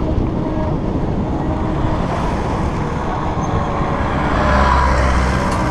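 Steady wind and road rumble from riding a bicycle fast down a rough dirt road, heard on a camera carried on the bike. It grows louder and deeper about four and a half seconds in.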